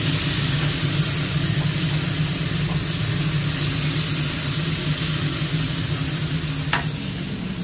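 Burger patties sizzling on a hot flat-top griddle, a steady hiss over a low hum of kitchen machinery, with one short sharp sound near the end.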